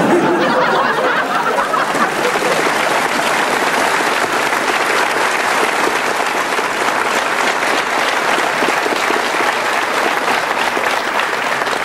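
Studio audience applauding steadily and at length, a dense, even clapping.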